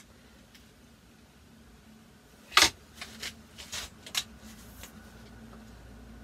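Webley VMX .22 break-barrel air rifle being cocked: a loud clack as the barrel is broken open, followed by a few lighter mechanical clicks, then faint handling of the opened gun.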